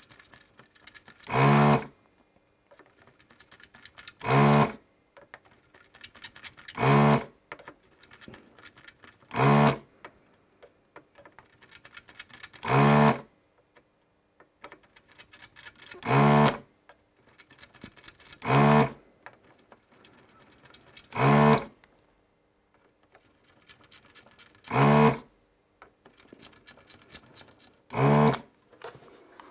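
ZD-985 desoldering gun's vacuum pump buzzing in short bursts, about half a second each, ten times at roughly three-second intervals, as each chip pin's solder is sucked away. Faint ticks of the gun's tip against the board come between the bursts.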